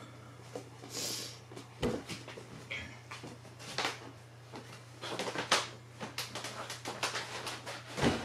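Scattered knocks, taps and rustling of a person moving about a small room, over a steady low hum, with a louder thump near the end.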